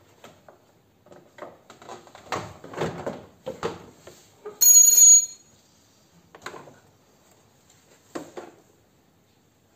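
Plastic door trim panel being worked up and off a car door: scraping, rustling and clip knocks. About five seconds in there is a loud, brief high-pitched squeal, followed by two single knocks.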